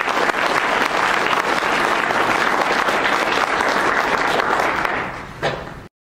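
Audience applauding, a dense steady clatter of many hands that thins out about five seconds in and stops abruptly just before the end.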